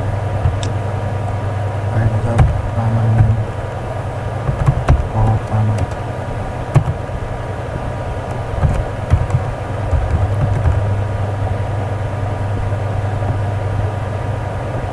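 A steady low hum of background noise, with scattered clicks of keys typed on a computer keyboard.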